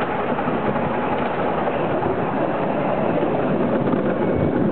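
Miniature railway train running along the track, heard from an open passenger car: a steady, even running noise of the wheels and train with no distinct knocks or changes.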